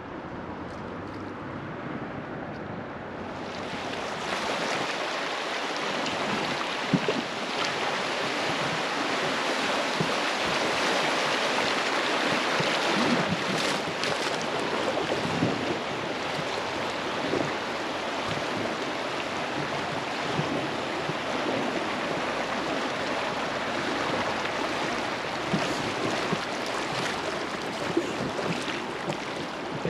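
Rushing river water flowing around a floating raft, a steady noise that grows louder and brighter about four seconds in, with scattered small splashes.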